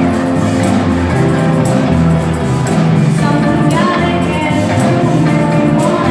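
School stage band playing live: a group of singers over saxophones, electric guitar and drums, with a steady beat.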